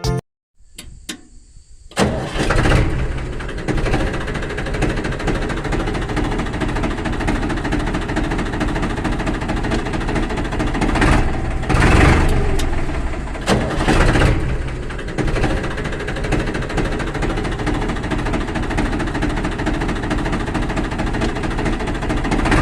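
A small engine starts suddenly about two seconds in and runs steadily, surging louder twice near the middle.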